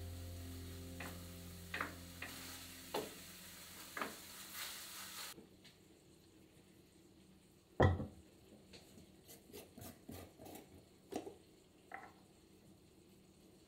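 Food sizzling in a frying pan as it is stir-fried to cook off the alcohol, with a wooden spatula tapping against the pan about once a second. The sizzle cuts off suddenly about five seconds in. Near eight seconds a glass is set down on a wooden table with one loud knock, followed by a few light clinks and taps of glass jars.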